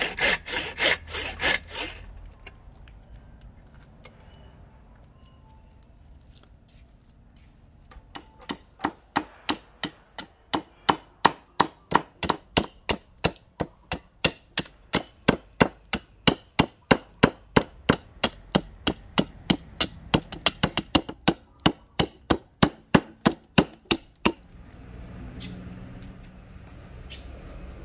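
A hand saw cutting into a Siamese rosewood blank in quick back-and-forth strokes, stopping about two seconds in. After a lull, a large knife blade chops into the hardwood in sharp, regular strikes, about three a second for some sixteen seconds, splitting off the waste blocks between the saw kerfs.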